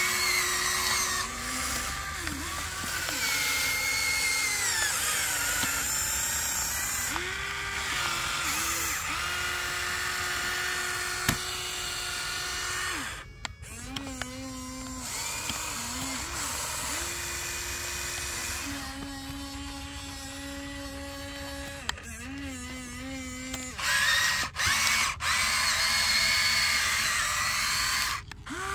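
Small electric motors of a radio-controlled toy excavator whining as the boom, arm and bucket move. The pitch steps up and down with each move, and the whine cuts out briefly a few times between moves.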